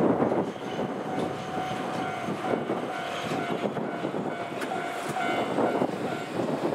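DE15 diesel-hydraulic locomotive with a Russell snowplow head running away along the track: steady engine and wheel-on-rail clatter, loudest at the start. A thin steady whine runs under it and stops about four seconds in.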